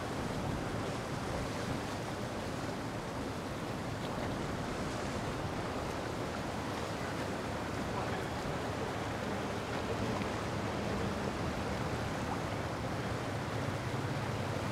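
Steady rush of wind on the microphone and moving water, with the low hum of a boat engine coming up about two-thirds of the way through.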